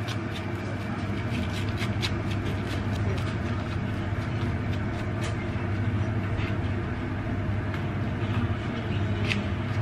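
A steady low hum runs throughout, with scattered light clicks and scrapes of a metal spoon against a small plastic food tray as a topping is scooped out onto toast.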